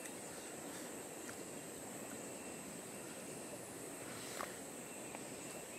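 Steady high-pitched insect drone over a quiet, even outdoor hiss, with a faint click about four and a half seconds in.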